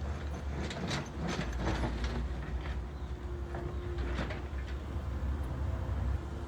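Backhoe loader's diesel engine running with a steady low rumble, with several short metallic clanks and rattles from the machine over the first few seconds and once more later.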